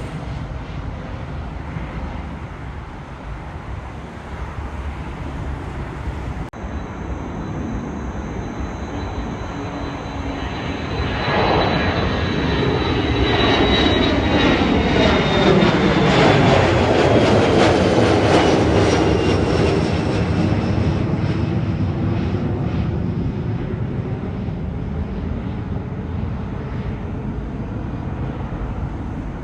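Jet airliner passing close by on the runway: a steady engine roar swells to its loudest about halfway through, with a high whine and engine tones that fall in pitch as it goes past, then eases off.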